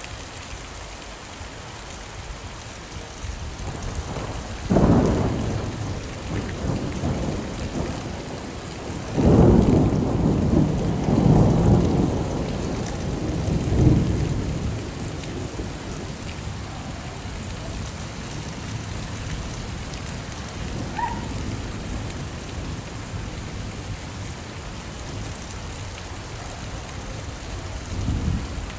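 Steady rain with thunder: a sharp clap about five seconds in, a long rolling rumble from about nine to fourteen seconds, and a softer rumble near the end.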